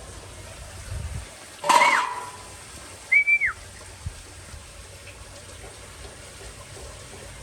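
Puppy giving a sharp yelp, then about a second and a half later a short high whimper that holds and then drops in pitch.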